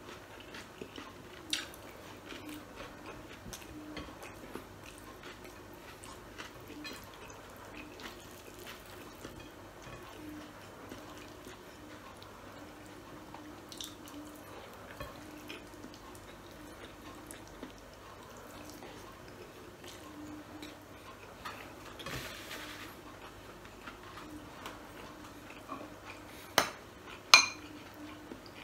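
Quiet, close-miked chewing and small mouth and hand sounds of someone eating rice and sausage by hand. Near the end a metal spoon clinks twice against a glass bowl.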